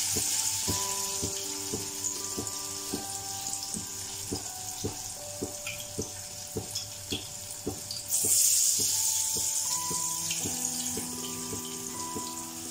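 Vadai batter deep-frying in hot oil in a steel kadai: the sizzling eases off, then breaks out loudly again about eight seconds in as another vadai goes into the oil, and fades.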